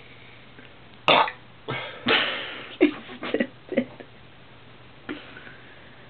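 A man burping after drinking beer: a string of loud belches from about a second in, the longest one near the middle, then several short ones and a faint last one.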